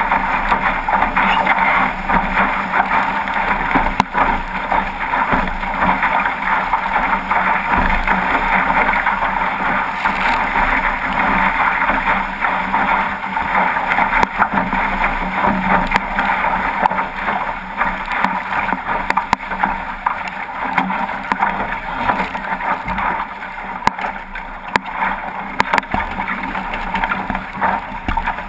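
Steady rush of water along the hull of a 505 sailing dinghy moving fast under sail, mixed with wind buffeting the camera microphone.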